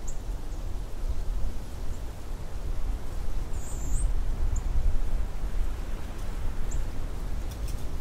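Wind blowing in uneven gusts: a low rushing that swells and eases throughout, with a few faint, short high chirps over it.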